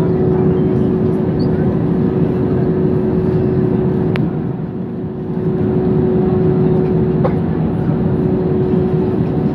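Airbus A320 cabin noise while taxiing: a steady engine rumble with a constant hum, not building up as a takeoff roll would. The loudness dips briefly about halfway through, and there is one faint click.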